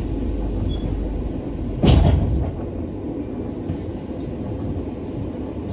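A moving bus heard from inside, with a steady low engine and road rumble. A loud single thump about two seconds in, and another just at the end.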